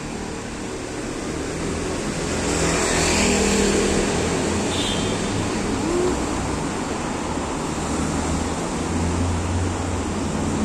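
Steady city road traffic noise with a low rumble, swelling as a vehicle passes about two to four seconds in.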